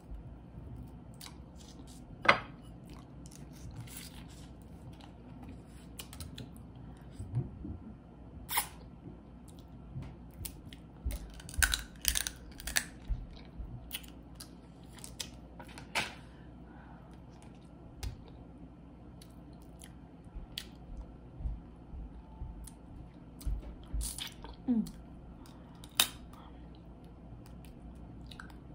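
Close-up eating sounds of a seafood boil: crawfish and shrimp shells cracking and being peeled, and chewing, heard as scattered sharp snaps and clicks.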